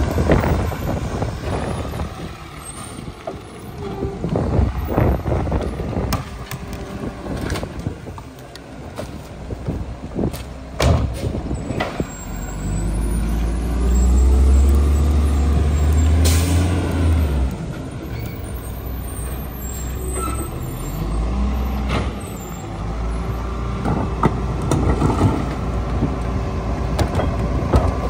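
Mack MR rear-loader garbage truck's diesel engine running, with scattered clanks and knocks. About halfway through, the engine revs hard and low for several seconds, and a short hiss of air from the air brakes comes near its end. After that the engine runs on at a steadier level.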